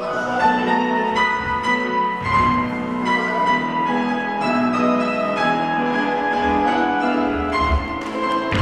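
Grand piano playing classical-style ballet class accompaniment, a flowing run of notes, with a few dull thuds of dancers' feet landing on the studio floor near the end.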